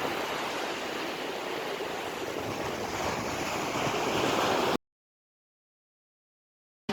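Sea surf: waves washing with a steady rushing noise, which cuts off abruptly about two-thirds of the way through and gives way to complete silence.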